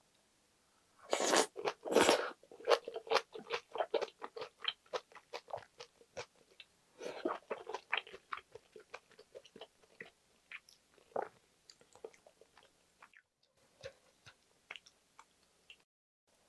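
A person chewing a mouthful of braised kimchi with pork belly and tofu. Two loud bites come about a second in, then rapid clicking chews, another loud burst around seven seconds, and chewing that grows sparser toward the end.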